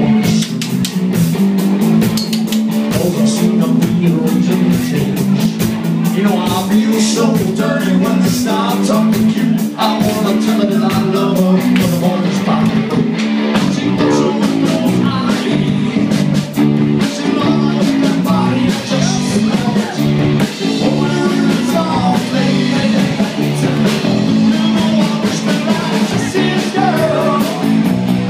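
Live rock band playing loud through the bar's sound system: electric guitars over a low bass line and a steady drum beat.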